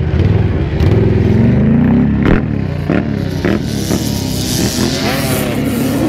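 ATV engine revving close by, its pitch rising over the first two seconds, followed by a few sharp knocks and an engine note rising and falling, with a hiss up high.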